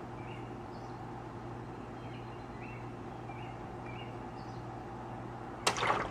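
Steady low hum with faint high chirps every second or so. Near the end, a sudden short rushing burst, the loudest sound.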